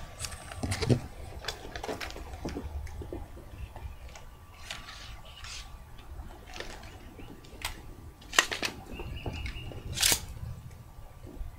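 Scattered light clicks and knocks with rustling as articulated cosplay wing frames and a jointed, collapsible practice sword are moved about. Two sharper knocks stand out about eight and a half and ten seconds in.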